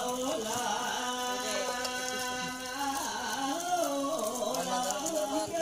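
Singing: a single voice holding long drawn-out notes in a slow melody, the pitch bending and gliding between them.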